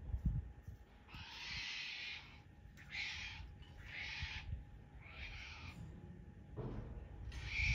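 A female wombat giving a run of about five harsh, hissing calls, each half a second to a second long, with short gaps between. They come as the male noses at her rear, and the uploader wonders whether they are a sign of her being in heat. A few low thumps sound near the start.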